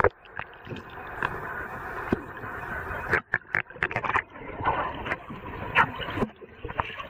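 Water heard through a submerged camera: a muffled, steady wash of underwater noise with scattered clicks and knocks.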